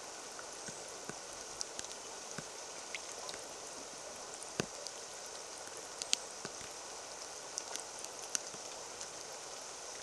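Rain falling on a shallow puddle: a steady hiss of rain with many single drops splashing close by as short sharp ticks, scattered irregularly.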